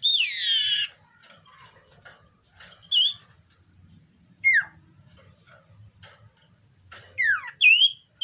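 A common iora (cipoh) in breeding condition calling in spaced notes. It opens with a long, harsh down-slurred note lasting almost a second. Short upturned whistles and quick falling whistles follow every second or two, and several come close together near the end.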